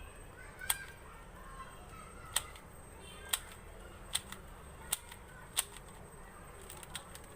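Valk 3 3x3 speed cube being turned by hand: its plastic layers click sharply as they snap into place, about half a dozen separate clicks roughly a second apart, during a test of its corner cutting.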